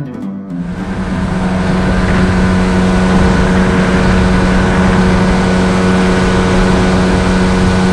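Boat outboard motor running at steady revs under way, with a steady rush of noise; it fades in over the first couple of seconds, then holds level.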